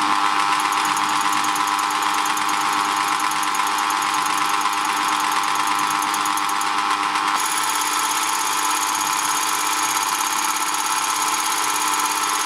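Cordless rotary hammer drill running with its chuck removed, a bit pressed against the spindle so the hammer mechanism engages: a steady, very fast mechanical rattle of blows, rated at about 5,000 to 6,000 a minute. Its tone shifts about seven seconds in.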